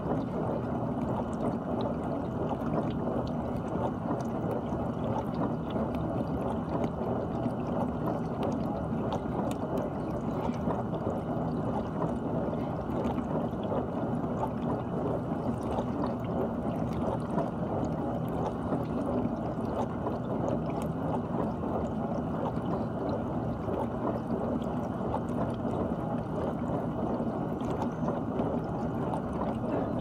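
GE dishwasher running through its wash cycle: a steady churn of water spraying and sloshing inside the tub over a low, even hum.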